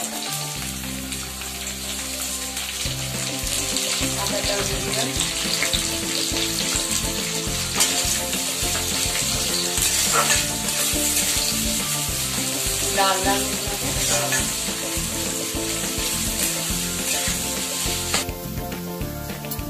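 Chopped onions and garlic sizzling as they fry in hot oil in a kadai, stirred with a spatula. The sizzle cuts off abruptly near the end.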